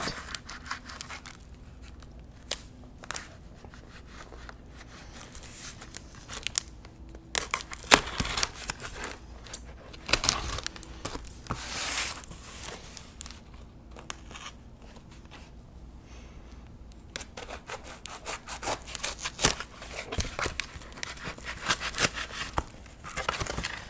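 Packing tape on a cardboard box being cut and torn open, with irregular rips, scrapes and crinkling of the box and its flaps; the loudest rips come about a third and halfway through.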